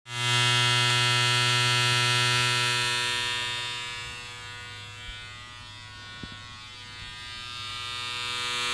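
Electric hair clippers buzzing with a steady hum. The buzz fades down after about three seconds and swells back up near the end.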